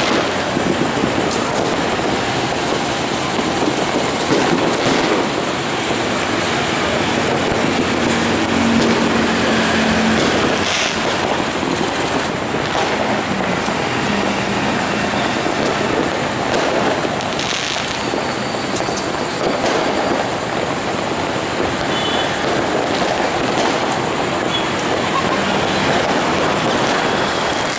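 A train running past close by: a steady, loud rumble and rattle of wheels on rails, with a couple of sharp knocks partway through.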